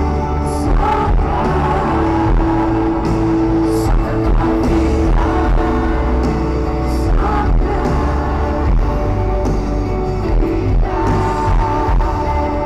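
Live band playing a gospel worship song with singing, loud through a stadium PA, with heavy bass and sustained chords.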